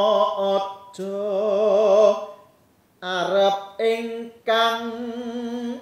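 A solo male voice, unaccompanied, sings a Javanese macapat song in the Sinom metre (tembang sinom). It holds long notes, some with a wavering vibrato, in phrases broken by short pauses.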